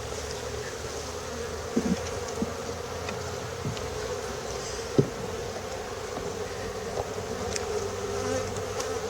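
A honeybee colony buzzing steadily around an opened hive, with a few faint clicks and one sharp knock about five seconds in.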